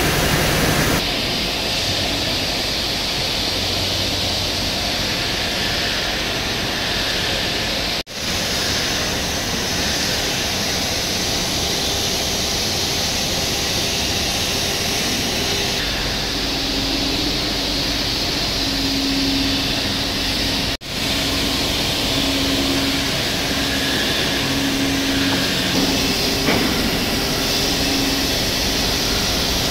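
Large gantry milling machine machining a welded steel machine bed: steady, noisy running with a low hum that comes and goes in the second half. The sound breaks off briefly twice.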